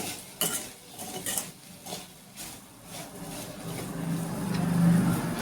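A spatula scraping and tapping against a frying pan while okra fry is stirred, in short irregular strokes. A low steady hum swells up in the last couple of seconds and becomes the loudest sound.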